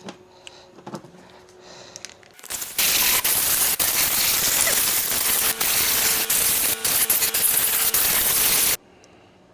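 Compressed-air blow gun blowing out the engine bay: a loud, even hiss that starts suddenly about two and a half seconds in, runs for about six seconds with a few crackles, and cuts off sharply. It is clearing dirt and debris from around the intake before parts are removed. A few faint handling clicks come before it.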